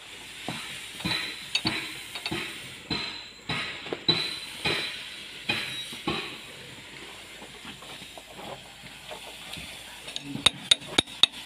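A steel wrench clinking and knocking against the bolted steel inspection cover of a motor grader's tandem chain housing. The strikes are irregular, about two a second at first, then sparser, with a quick run of sharp clicks near the end, over a steady hiss.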